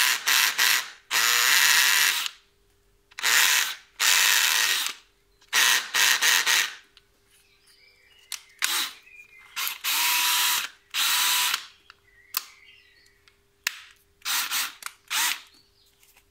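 Bosch GSB 18V-85 C cordless combi drill with a brushless motor, run in a series of short trigger bursts with the motor spinning up and stopping each time. The longest burst lasts about a second; near the end the bursts are shorter and spaced further apart.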